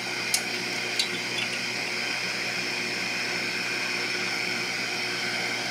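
Aoyue 2703A+ rework station's hot-air blower running steadily, with the hot air gun sitting in its cradle and still blowing air. Two light clicks in the first second.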